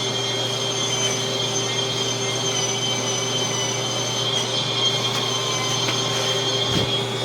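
Cordless electric spin scrubber running against a bathtub surface: a steady motor hum with a high gear whine that wavers slightly as the brush is pushed.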